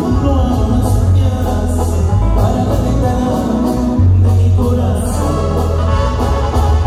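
Live band music with a singer, played loud through the concert PA, with a strong bass line and drums under the voice.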